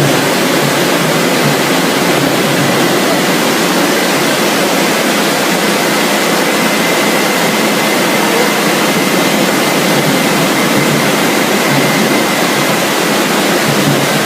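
French fries production-line machinery running steadily: a loud, even rushing noise with a faint high whine from about two seconds in.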